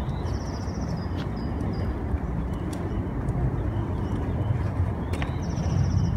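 Hard plastic wheels of a large wheeled trash cart rolling on a concrete sidewalk, giving a steady low rumble with light clicks and knocks.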